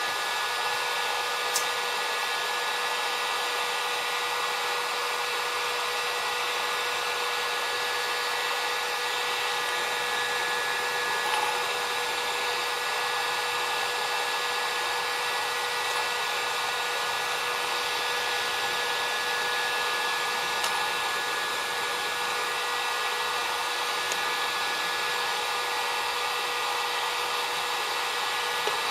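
Electric heat gun running steadily, its fan blowing with a constant whine as it heats a PVC pipe ring to soften it.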